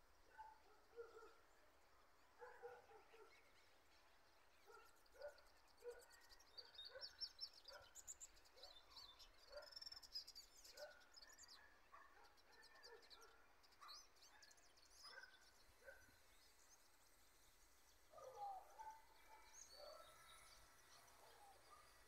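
Faint outdoor birdsong: scattered short calls all through, with quick high twittering chirps for several seconds in the middle and again near the end.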